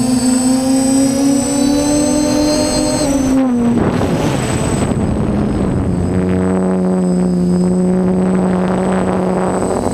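DJI F550 hexacopter's six electric motors and propellers whining, heard up close from a camera on the frame. The pitch drops about three seconds in, a rushing noise takes over for a couple of seconds, then the whine settles steady at a lower pitch.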